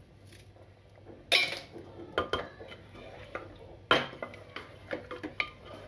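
A wooden spatula knocks and scrapes against the side of an aluminium pressure cooker while stirring a thick meat curry. There is a sharp knock about a second in and another about four seconds in, with lighter taps between.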